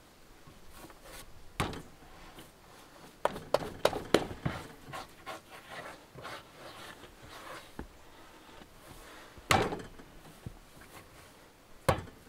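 Bread dough being kneaded by hand on a floured wooden table: soft slaps and thuds as it is pressed and folded, with a quick run of knocks about three to four seconds in and single thuds later.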